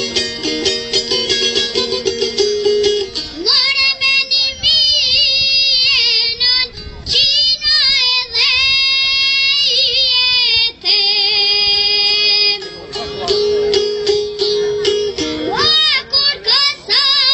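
A child singing an Albanian song with a wavering vibrato over a fast plucked-string accompaniment. The instrument plays alone for about the first three seconds and again for a short interlude near the end, before the singing returns.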